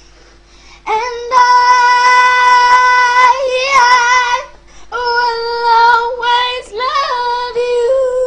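Young girl singing solo without accompaniment, holding long, steady notes in two drawn-out phrases that start about a second in and break briefly halfway through.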